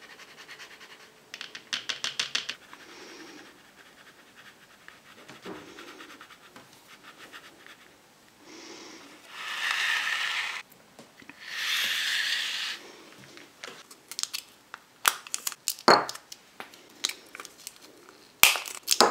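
Hands handling thin plastic candy-kit mould trays and packets: scraping and rustling, two loud swishing scrapes of about a second each around the middle, then a run of sharp clicks and crinkles as a plastic packet is pulled open.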